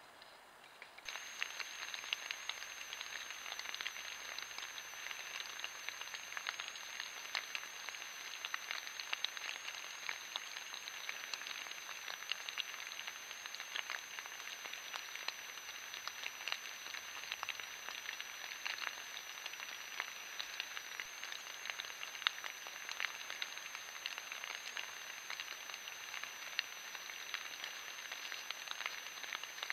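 Light rain pattering on leaf litter: a dense, steady crackle of tiny irregular ticks, starting about a second in, over a faint steady high-pitched electronic whine from the trail camera.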